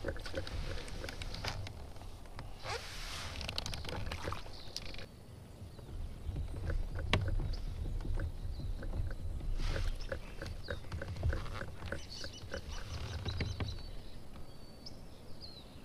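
Kayak moving on the river: a low rumble of water against the hull, with scattered clicks and knocks from the boat and splashy hiss now and then, and a few high chirps in the later part.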